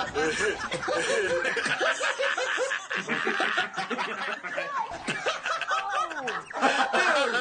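Four men laughing together, their voices overlapping.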